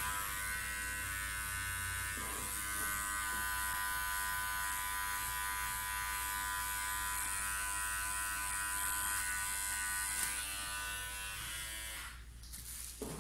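Powertec TR 1700 electric hair clipper running steadily as it is passed over short hair at the nape, then switched off about twelve seconds in.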